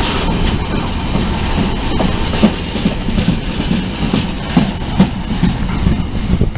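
Train running along the track, a loud, steady rumble. From about two seconds in, its wheels knock over the rail joints a few times a second.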